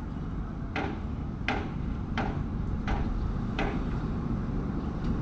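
Hammering at a construction site: five evenly spaced knocks about two-thirds of a second apart, over a steady low rumble of wind and distant machinery.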